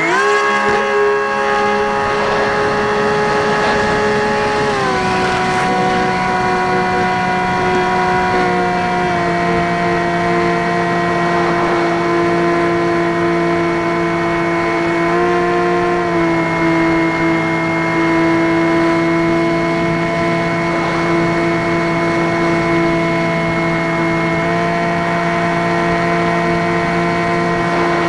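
Skywalker X5 flying wing's electric motor and propeller running steadily in flight, a whine with several overtones. The pitch steps down about 5 and 9 seconds in as the throttle is eased back, with smaller shifts later.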